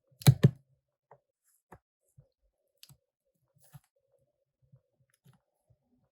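Two sharp clicks in quick succession near the start, then faint, scattered small clicks and taps: small tools and plastic parts handled while a smartphone is taken apart.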